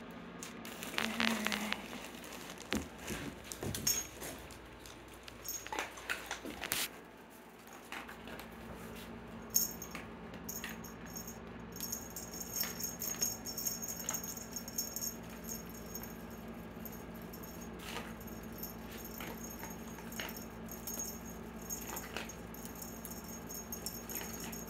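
Scattered light rattles, rustles and knocks from a cat playing with a wand toy during the first several seconds, then only a faint steady room sound.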